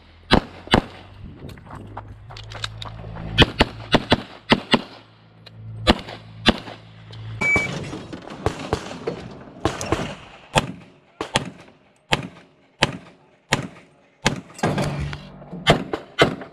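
Semi-automatic pistol shots from a 1911-style pistol on an IPSC course of fire, loaded to Major power factor. The shots come mostly in quick pairs, with short pauses between strings as the shooter moves between positions.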